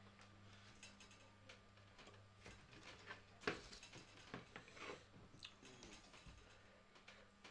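Near silence: room tone with a low steady hum and scattered light taps and clicks, the loudest about three and a half seconds in, from small whiteboards and marker pens being handled on a wooden table.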